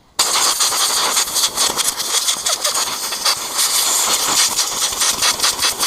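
A loud jet of pressurised air or spray hissing. It starts abruptly just after the start and flutters in strength. No engine is running.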